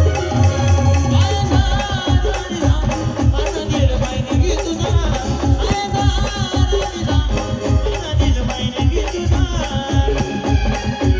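Live band music for an Ahirani song: a steady drum beat of about two strokes a second, with a rattling shaker-like percussion and a wavering, ornamented high melody line over it.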